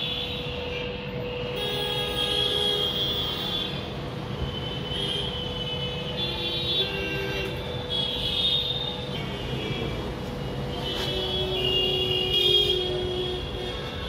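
Steady hum over background road traffic, with short vehicle horn toots coming and going.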